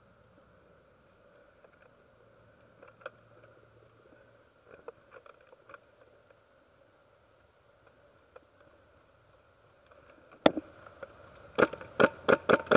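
A quiet stretch with a few faint clicks, then a single sharp crack about ten and a half seconds in and a rapid string of sharp snaps near the end: gunfire from opposing airsoft players.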